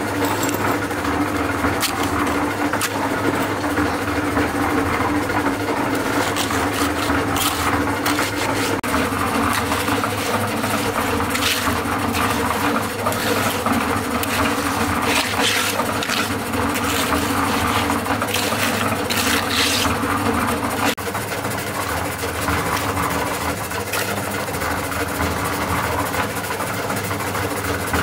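A motor running steadily, with scattered sharp knocks over it; the sound changes abruptly about 21 seconds in.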